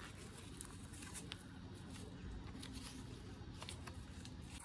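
Faint rustling and scattered light ticks of velcro straps on a horse's leg boot being wrapped and pressed closed, over a low steady rumble.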